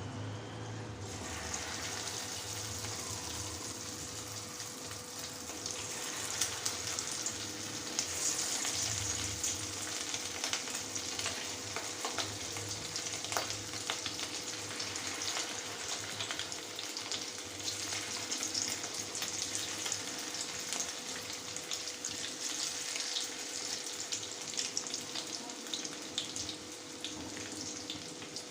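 Egg-marinated chicken pieces frying in hot oil in a pan: a steady sizzle full of small crackles and spits, growing louder about a second in as the next batch goes into the oil.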